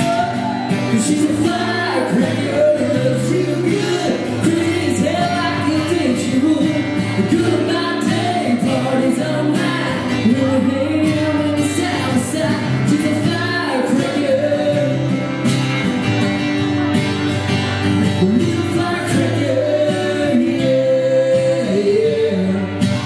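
Live acoustic country song: two acoustic guitars played together under a man's singing voice, with no break.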